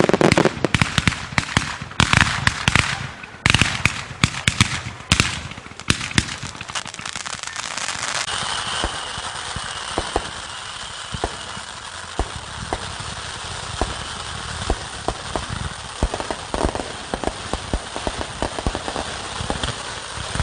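Fireworks going off: a rapid run of loud bursts and reports for about the first six seconds, then dense, continuous crackling with scattered pops for the rest.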